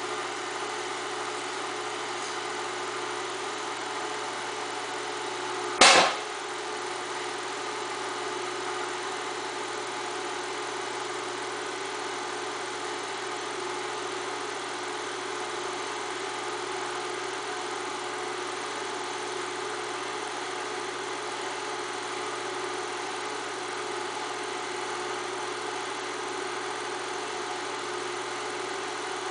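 8mm film projector running, a steady mechanical whir, with one sharp click about six seconds in.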